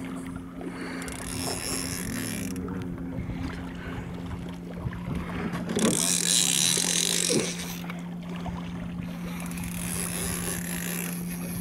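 A boat motor running with a steady hum. A louder burst of hiss comes about six seconds in and lasts about a second and a half.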